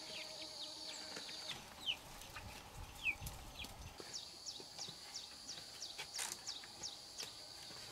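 Faint outdoor nature sounds: a steady, high-pitched insect drone that stops about a second and a half in and comes back about four seconds in. Over it are short falling chirps, a few scattered at first, then a quick run of two to three a second.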